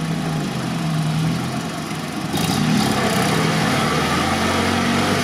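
A UAZ-469 off-roader's engine working under load as it crawls through deep mud, with the wheels churning and slipping on worn, near-slick tyres. A rush of noise joins about two and a half seconds in.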